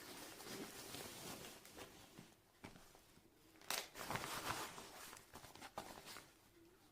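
Irregular rustling and crinkling handling noises, like packaging or fabric being moved about, with the loudest burst about four seconds in.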